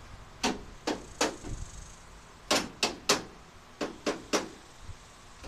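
Sharp knocks and clicks of the grille being worked into place on a 1976 Chevy Blazer's front end, in three quick groups of three.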